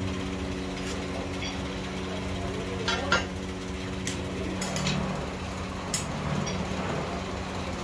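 Steel moulding flasks and a pouring ladle knocking and clinking as they are handled, in a few sharp metal clinks, the loudest about three seconds in. A steady machine hum runs underneath.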